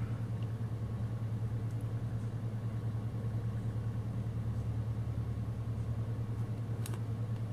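A steady low background hum, like a motor running, with a fast even flutter in its loudness. There is a single light click near the end.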